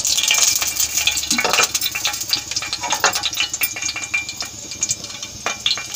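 Cooking oil sizzling and crackling in a hot kadai, loudest just after it is poured in and slowly dying down, with a couple of light knocks.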